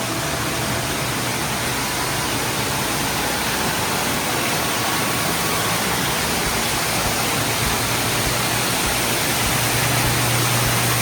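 Indoor waterfall: water falling and splashing in a steady rushing noise, with a low hum underneath. It grows a little louder near the end.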